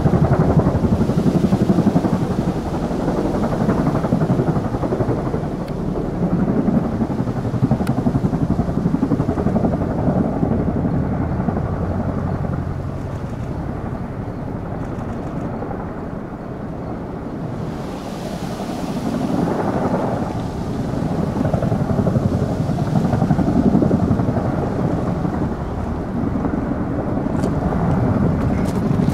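Tandem-rotor Chinook helicopter hovering low over water, its heavy rotor chop and turbine noise easing off midway and swelling again. It is hover-filling its water tank through a snorkel hose dipped into the lake.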